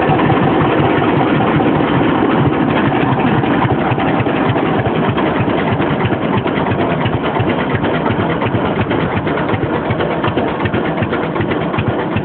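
1947 John Deere Model D's two-cylinder engine idling with the throttle pulled back, a steady popping beat whose separate strokes grow plainer as it slows.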